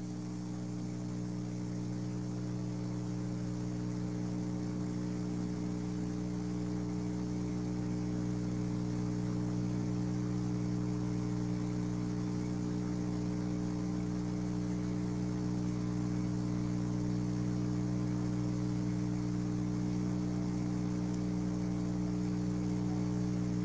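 Steady electrical hum over a low hiss, slowly growing a little louder; no stirring, scraping or other kitchen sounds stand out.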